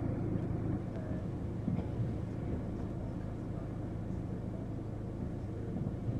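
Iveco Daily 35S12's 2.3 HPI four-cylinder turbodiesel idling steadily, heard from inside the cab while the van sits in stationary traffic.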